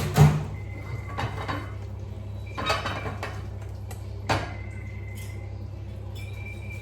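Plates and utensils clinking and clattering as curry and rice are served: four or five separate knocks, the loudest right at the start, over a steady low hum.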